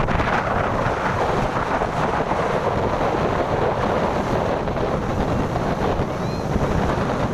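Strong wind buffeting the microphone over big breaking waves, a loud, steady rushing noise. A faint, brief whistle-like call sounds a little after six seconds in.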